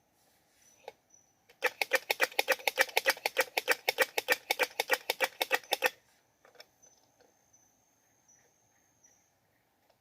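Squirrel calling: a loud, rapid run of sharp chirps, about seven a second, lasting roughly four seconds and starting about a second and a half in. This is a call that the uploader takes to be a mate-seeking call.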